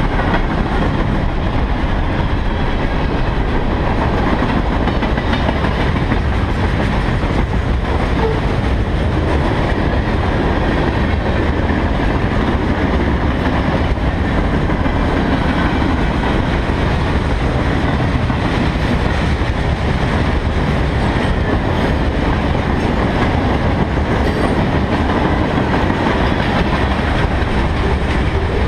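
Freight cars rolling past at close range: a steady rumble of steel wheels on rail that keeps up unbroken as the cars go by.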